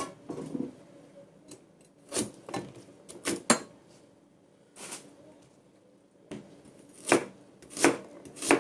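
A cleaver slicing a carrot into rounds on a plastic cutting board: single sharp knocks, spaced unevenly at first, then coming about every 0.7 s near the end.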